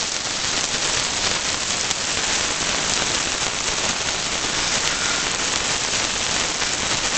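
Pork shank chops sizzling steadily in hot oil in a frying pan on medium-high heat.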